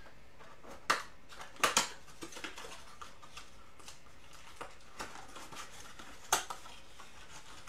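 A cardboard trading-card blaster box being handled and opened by hand: sharp knocks and taps of the box, with lighter rustles and clicks between. The loudest knocks come about a second in, twice close together shortly after, and once more near the end.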